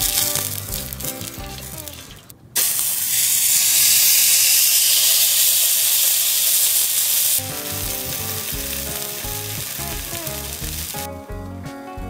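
Thick beef steak sizzling on a small hot iron griddle plate, over background music. The sizzle turns loud about two and a half seconds in as the meat goes down, drops to a softer sizzle about five seconds later, and fades near the end.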